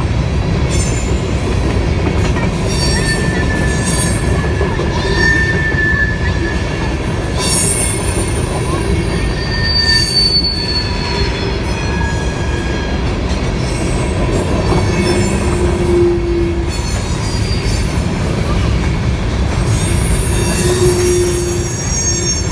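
Norfolk Southern freight train rolling past: a steady heavy rumble of cars on the rails, with wheel flanges squealing in on-and-off high tones.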